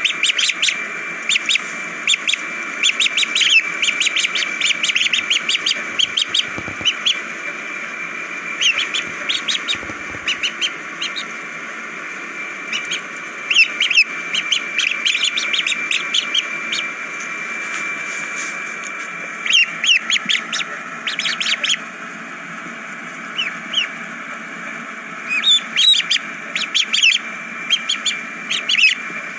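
Ducklings peeping, many short high-pitched calls in quick clusters, with a few quieter lulls between.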